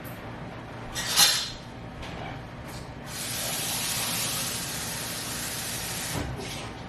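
Water spraying onto a freshly potted plant: a short hiss about a second in, then a steady spray for about three seconds that stops suddenly.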